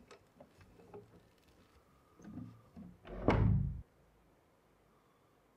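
A few faint clicks and handling sounds, then a panelled door shut with a heavy thud about three seconds in.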